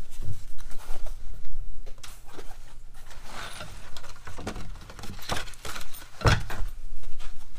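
Fabric tool bags being handled and unpacked: rustling and rubbing with scattered knocks, and a heavier thump about six seconds in.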